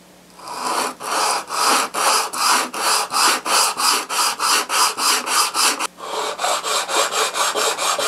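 Edge plane's sole rubbed back and forth on coarse sandpaper, sanding the red paint off its bottom. Quick, even scraping strokes, about three a second, with a brief pause about six seconds in.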